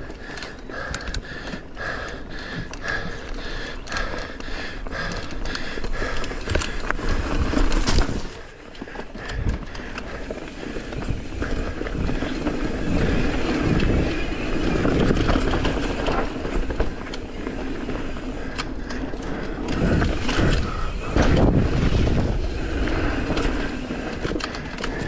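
Mountain bike ridden fast over a dirt singletrack: tyres running over dirt and leaves, and the bike knocking and rattling over bumps. A low rumble grows louder in the second half.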